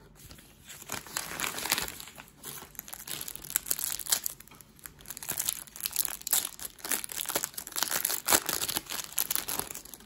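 Hands opening a hockey card pack: the paper wrapper and the clear plastic wrap around the cards crinkle and tear in many small, irregular crackles.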